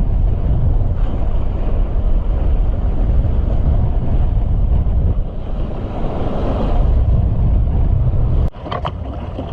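Strong wind buffeting the microphone aboard a sailboat, a heavy, uneven rumbling rush. It drops abruptly about eight and a half seconds in to a lighter wind noise.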